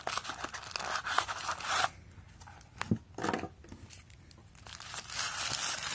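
Cardboard box and paper wrapping rustling and tearing as they are opened by hand, most busily for about the first two seconds, with a sharp click about three seconds in and quieter handling after.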